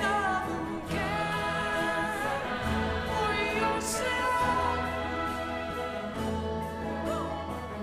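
Choir singing sustained lines over a symphony orchestra, with a lead vocalist and acoustic guitar, in a live orchestral arrangement of a rock song.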